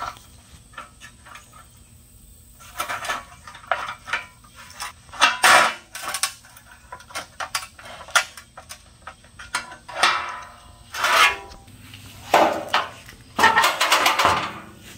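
Tin snips cutting a small patch out of scrap sheet steel: an irregular run of sharp snips and metallic clinks. Several louder clatters of the sheet metal come in the second half.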